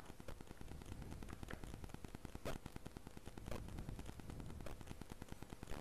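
Crackling rustle of fingers working a foam windscreen back onto a small clip-on microphone wrapped in paper tape, with a few sharp clicks about a second apart.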